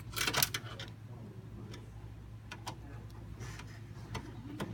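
Clicks and light knocks of plastic and metal computer parts being handled: a quick cluster near the start, then single clicks about once a second.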